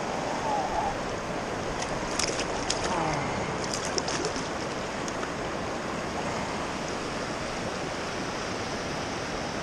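Steady rush of river current over rocks, with a few short crisp ticks between about two and four seconds in.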